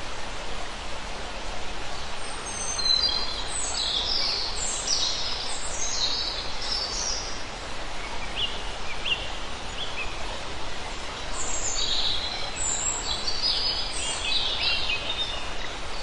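Steady rush of water from a rocky forest stream, with birds chirping over it in two busy spells, a few seconds in and again in the second half.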